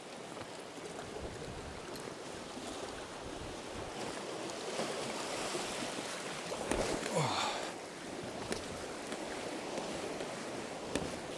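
Sea swell washing over and around shoreline rocks, the foam fizzing; the wash swells to its loudest about seven seconds in. A few light knocks sound on top.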